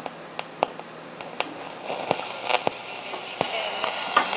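1956 Arvin 956T tube AM radio crackling and popping as it is switched on and turned up, with static hiss building in the second half.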